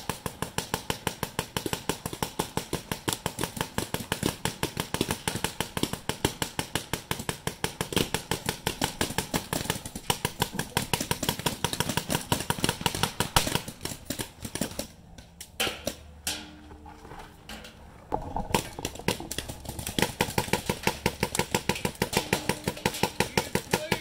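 Adrenalin Angel LCD electro-pneumatic paintball marker firing rapid, even strings of shots, pausing for a few seconds about two thirds of the way in before firing again.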